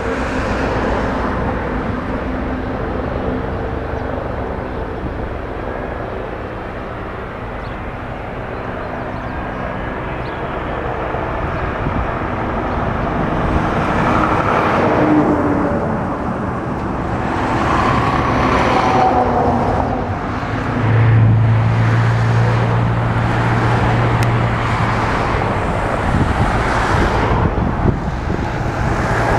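Boeing 777 jet engines running: a loud, steady roar with held tones. Whining tones rise and fall from about halfway through, and a strong low hum comes in for a few seconds after that.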